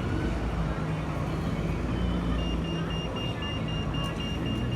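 Street traffic with a vehicle engine running low and steady. From about halfway, a high electronic beep repeats rapidly, about four times a second.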